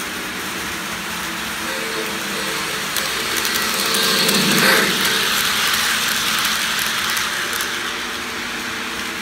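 Model steam locomotive and train running past on the track: a rolling rumble that grows louder, peaks about halfway through as the engine goes by, then fades, with light clicking of wheels over the rails.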